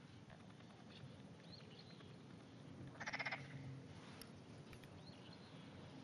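A frog gives one short croak about three seconds in, a quick run of rapid pulses, the loudest sound in an otherwise faint pond-side background.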